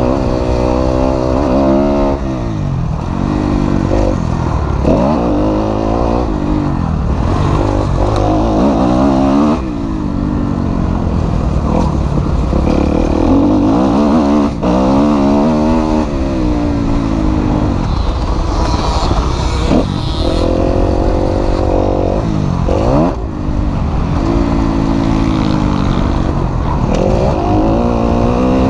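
Kawasaki KX250F four-stroke single-cylinder motocross engine under hard riding, heard close from on the bike: the revs climb and fall back again and again as it accelerates, shifts and slows around the dirt track.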